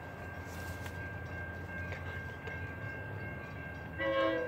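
Train running with a steady low rumble and a thin, constant high whine; about four seconds in, the cab car's multi-note horn starts to blow, the loudest sound here.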